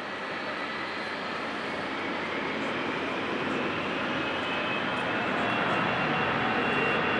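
Airbus A320 jet engines at takeoff power: a steady roar that grows louder and louder, with a thin high whine over it.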